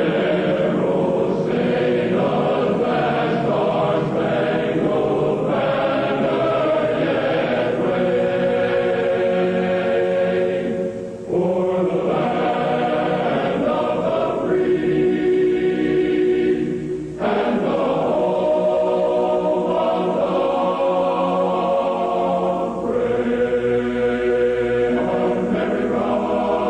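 A choir singing slow, sustained chords in long phrases, with brief breaks about 11 and 17 seconds in.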